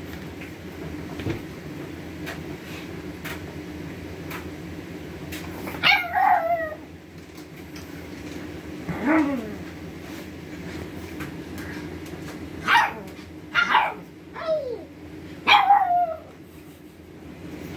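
Pug puppy giving short, high yelping barks that slide down in pitch, like little howls. There are about six spread irregularly, starting about six seconds in and bunching near the end. It wants the towels in a laundry basket.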